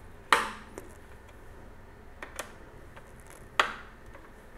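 Two sharp metallic clicks about three seconds apart, with a few faint ticks between, from a long Phillips screwdriver being set into and turned on the mounting screws of a Cooler Master Wraith Ripper CPU cooler.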